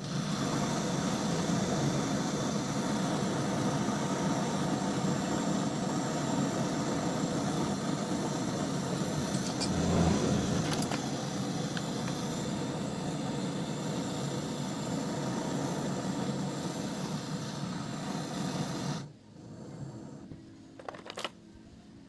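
Handheld canister gas torch burning with a steady hissing flame while brazing a refrigerant charging valve onto a refrigerator compressor's tube, then shut off abruptly about 19 seconds in. A few light clicks follow near the end.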